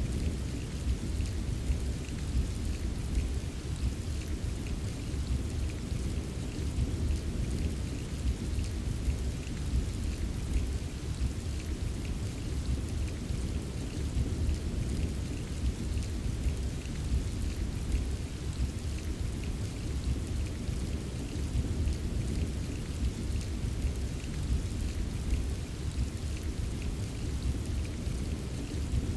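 Steady rain ambience: an even hiss of rain with fine scattered drop ticks over a constant deep rumble, like a continuous thunderstorm.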